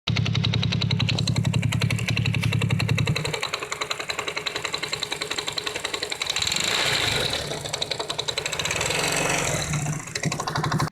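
110 cc motorcycle engine running with a rapid, even clatter from the clutch side, the engine note rising twice in the second half. The rattle is the fault that the owner puts down to gears on the clutch side whose alignment dots do not line up.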